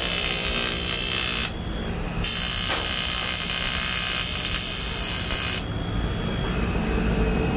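A small high-speed electric power tool buzzing in two runs, the first about a second and a half long and the second about three and a half seconds, each starting and stopping sharply.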